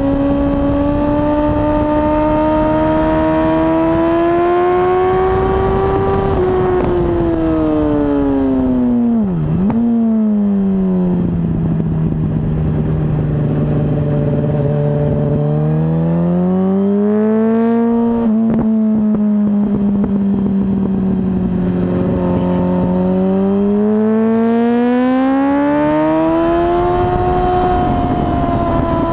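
Sport motorcycle engine at track speed, recorded on board: one strong engine note that climbs for several seconds, sinks, dips sharply and recovers about nine and a half seconds in, holds low for a while, then climbs and falls again twice.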